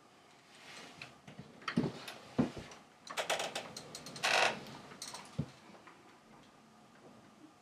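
A person shifting, turning and stretching in a swivel office chair: a few knocks and creaks, then bursts of rubbing and squeaking from rubber clothing and the chair, loudest about four and a half seconds in, with a last thump about a second later.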